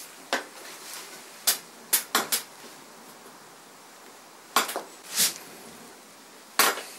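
A series of short, sharp clicks and knocks, about eight in irregular groups, of small wooden repair pieces and tools being handled and pressed into place on a workbench.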